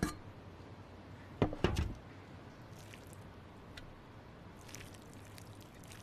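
Two dull knocks about a second and a half in, then faint wet squishing and small clicks, as a crock of fermented shredded radish is opened and dug into.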